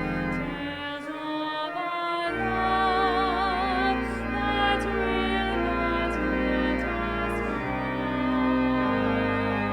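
Slow music of long-held chords over deep sustained bass notes, with a melody line that wavers in vibrato; the chords change every second or two.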